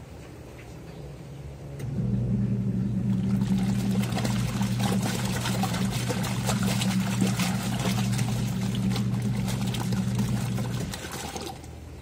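Twin-tub washing machine's wash tub agitating four bath towels in soapy water: the pulsator motor starts with a steady hum about two seconds in, churning and sloshing the water, and stops shortly before the end, one stroke of the alternating wash cycle.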